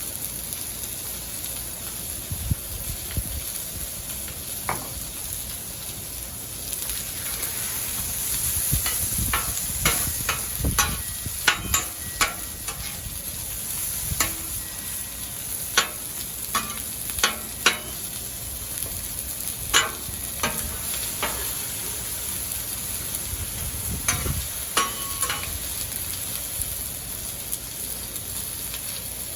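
Food sizzling steadily on a Blackstone flat-top griddle, with sharp clicks and scrapes of a metal spatula on the steel plate, coming thick and fast in the middle stretch.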